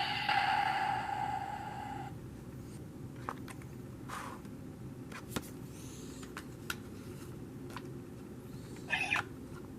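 A high-pitched, cat-like cry held until about two seconds in, followed by a steady low rumble with scattered faint clicks.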